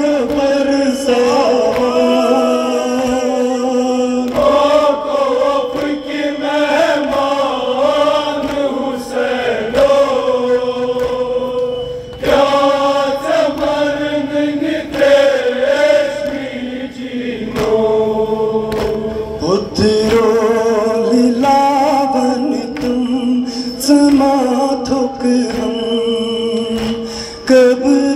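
Male voices chanting a Kashmiri noha, a Shia lament, in sustained sung notes into a microphone.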